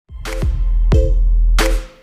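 Electronic background music with a deep bass and a heavy drum beat about every two-thirds of a second; it drops away just at the end.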